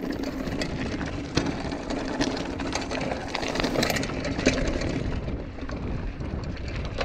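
Kona Manomano mountain bike rolling down a dry dirt-and-gravel trail: steady tyre rumble and crunch, with many sharp clicks and rattles from the bike over bumps.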